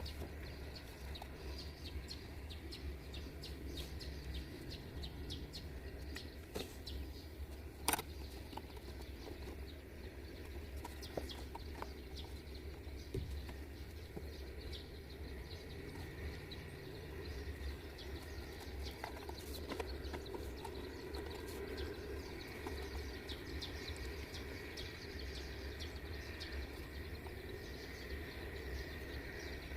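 Birds chirping over a steady low hum, with a few sharp clicks, one loud one about eight seconds in.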